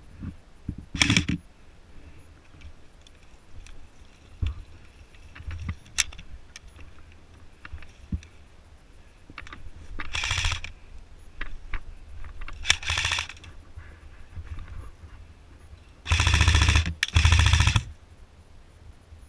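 Airsoft rifle firing five short full-auto bursts, each a rapid rattle of shots. The last two bursts, near the end and a moment apart, are the longest and loudest.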